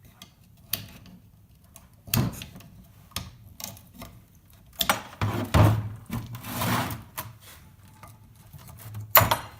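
Old brake-pad hardware clips being pried off a caliper bracket: irregular metallic clicks, knocks and scrapes, with a sharp click just before the end.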